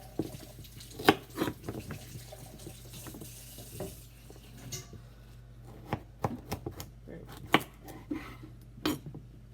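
Kitchen tap running into the sink, shutting off about halfway through, with irregular sharp knocks of a knife chopping on a cutting board.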